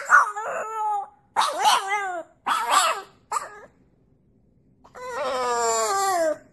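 French bulldog howling: a run of short, wavering calls, then a longer call falling in pitch near the end.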